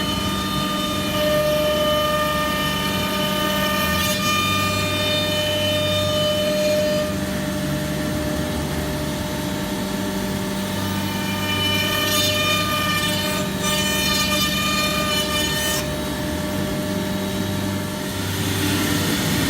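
Omnitech Selexx CNC router running: a steady machine hum and whine made of several held tones, its low hum dropping in and out every few seconds as the machine works.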